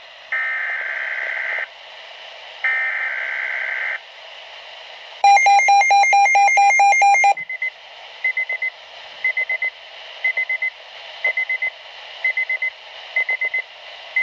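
Weather radio emergency alert signal. First come two warbling digital data bursts (SAME header tones) a second or so apart. Then a loud, rapidly pulsing alarm tone lasts about two seconds. After that, short clusters of high beeps repeat about once a second.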